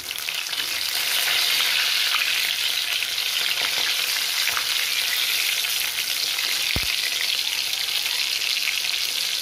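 Batter-coated pomfret fish frying in hot oil in a kadai on a raised flame: a steady, dense crackling sizzle, with a spatula scraping and turning the fish in the pan. A single soft low thump comes about two-thirds of the way through.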